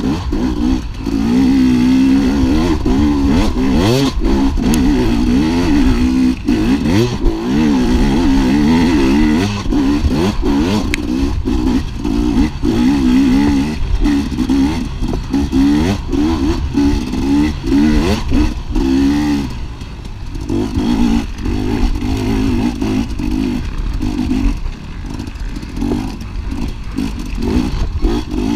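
250cc off-road racing dirt bike engine revving up and down constantly as it is ridden hard, its pitch rising and falling every second or so, with clattering knocks from the bike over the terrain. The engine eases off briefly twice in the later part.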